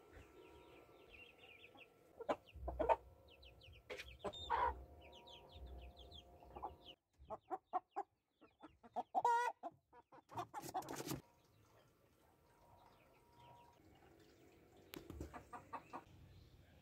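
Domestic hens clucking and calling in several bouts, with a loud wavering call about nine seconds in.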